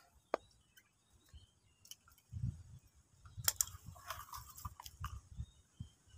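Faint clicks and scraping of steel binding wire being handled and twisted around a wire coil to tie it, with a sharp click about a third of a second in, a cluster of clicks about halfway, and some low dull thuds.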